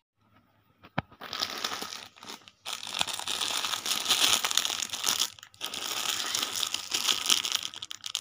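Clear plastic wrapping around folded cloth suits crinkling and rustling as it is handled and opened, in three long spells with brief pauses. A single sharp click comes about a second in.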